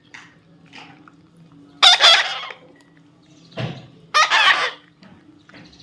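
Loud, harsh bird calls: two strong squawks about two seconds in and again near four seconds, with fainter, shorter calls between.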